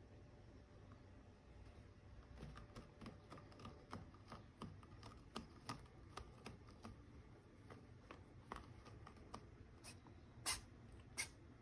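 A kitten moving about, its paws and claws making faint, irregular small clicks and scratches, with two louder sharp clicks near the end.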